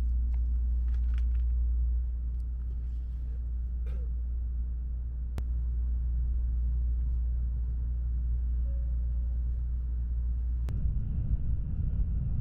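Steady low rumble of a Shinkansen bullet train running at speed, heard from inside the passenger car, with light rustling of magazine pages early in the stretch. Near the end the rumble turns rougher and louder.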